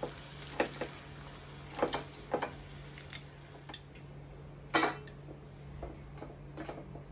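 Wire skimmer and fried chilli fritters clinking and tapping against a steel frying pan and dish as the fritters are lifted out of the oil and set down. A series of light, irregular clicks, the sharpest about five seconds in.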